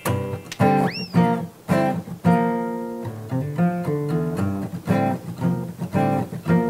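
Acoustic guitar played solo: a run of plucked notes and strummed chords, each ringing and fading, with one short note that swoops up and back down about a second in.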